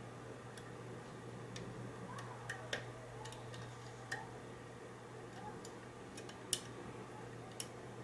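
Faint, irregular metallic clicks and ticks from a hook pick working the pins of a four-pin Mul-T-Lock interactive padlock core held under a tension wrench. The clicks are spread unevenly, the sharpest about six and a half seconds in, over a steady low hum.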